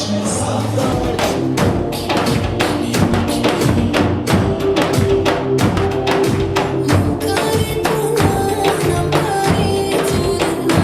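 Dance music with a quick, steady percussion beat and tambourine over sustained instrumental notes.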